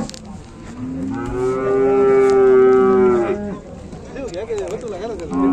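Cattle mooing: one long, loud moo from about a second in, lasting some two and a half seconds, and another beginning near the end.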